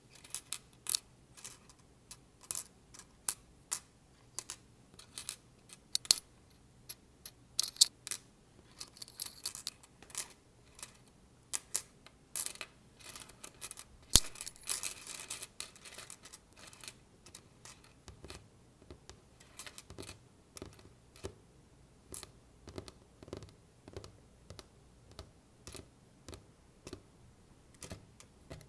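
Metal paper clips clicking and rattling against a rubber container: many sharp, irregular clicks, with busier rattling about ten and fifteen seconds in, then lighter, quieter clicks toward the end.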